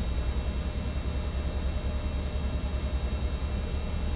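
Steady low drone of running machinery with a slight regular pulsing, and two faint mouse clicks about two seconds in.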